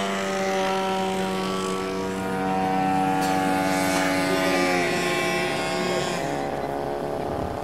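Radio-controlled model airplane engine running steadily overhead with a droning buzz; its pitch drops about five seconds in as the plane passes or throttles back.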